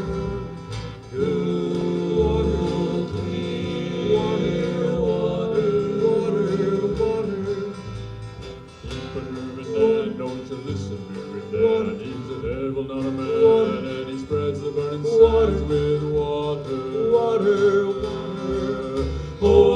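Live western band music: acoustic guitar with long held vocal harmonies, in the middle of a cowboy song.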